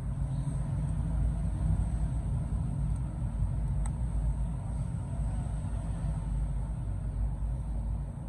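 Steady low background rumble with a faint click about four seconds in.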